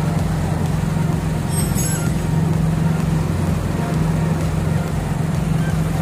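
Toyota Etios Valco engine idling steadily with the bonnet open, while an engine-flush cleaner is fed into it through a tube.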